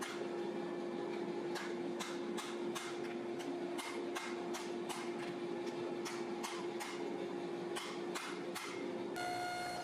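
Hand hammer striking a glowing Damascus steel billet on an anvil, irregular blows about two to three a second, over a steady hum. Near the end it cuts to a different steady machine hum.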